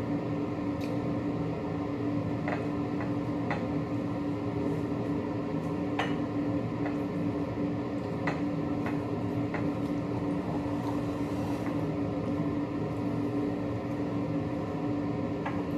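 A steady mechanical hum with one fixed low tone, with short light clicks and clinks scattered through it, about ten of them, like cutlery touching dishes during a meal.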